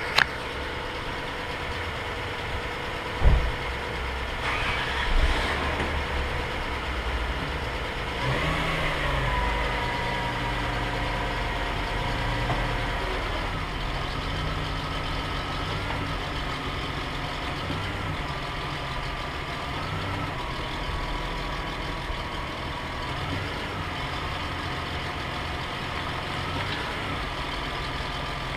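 2002 Toyota Camry V6 engine idling while the transmission is shifted between park, drive and reverse, with a sharp clunk about three seconds in and another bump soon after, and the engine note dipping and recovering a little as it takes up each gear. The owner suspects a worn motor mount.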